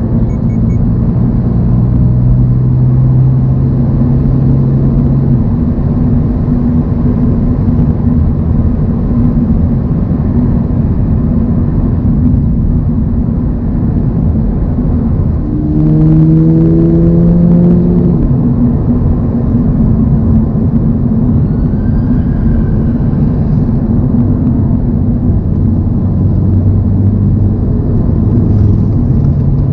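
2024 Toyota GR86's 2.4-litre flat-four engine running at steady highway revs over road noise, its pitch climbing briefly about halfway through as the throttle opens.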